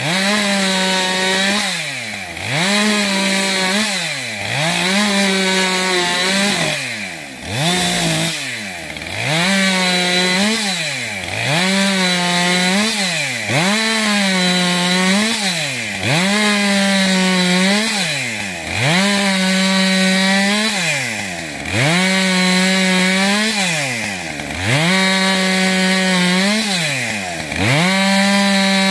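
Husqvarna 550 XPG Mark II two-stroke chainsaw making repeated short cuts in frozen spruce. The throttle is opened to full and held for a moment, then released so the engine drops away, about every one and a half to two seconds, some fifteen times in a row.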